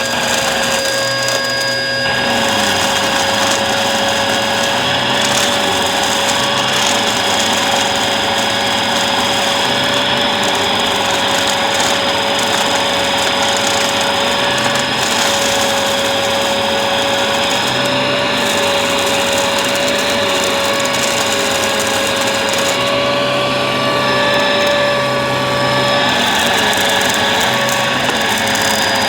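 Bissell vacuum cleaner running steadily: a constant motor hum with a steady whine over rushing air. The high end dulls for a few seconds about 23 seconds in.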